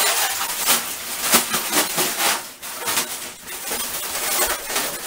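Bagged ice being emptied into a bathtub of water: a dense, continuous clatter of ice cubes spilling out and splashing into the water, with the plastic ice bag rustling.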